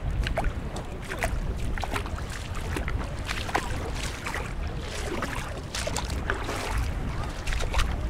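Shallow sea water lapping and splashing among the rocks of a tidal shore, many small sharp splashes and trickles over a steady low rumble.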